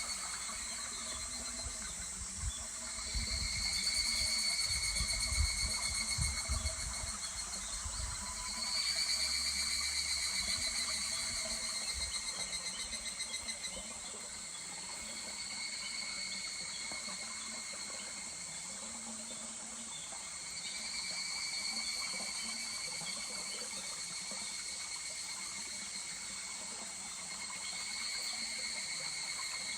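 Higurashi (evening cicadas) calling in overlapping choruses, each rapid trilling phrase swelling and fading over several seconds, over the steady rush of a small stream. Low rumbling through roughly the first eight seconds.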